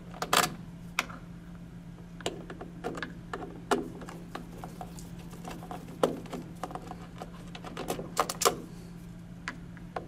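Hand screwdriver backing out terminal-strip screws in a plastic boiler control housing: irregular sharp clicks and taps of metal on screw heads and plastic. A steady low hum runs beneath.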